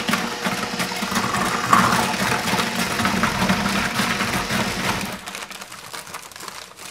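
Countertop blender motor running with Oreo cookies inside being ground to crumbs, a steady hum with grinding noise that stops about five seconds in.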